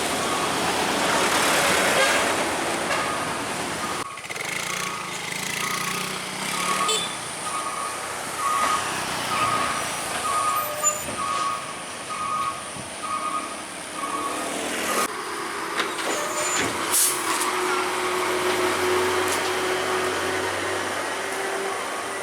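Heavy truck traffic: a loud hiss of air brakes at first, then a repeating electronic beep, about one to two a second, for roughly ten seconds. After that comes a steady low engine drone.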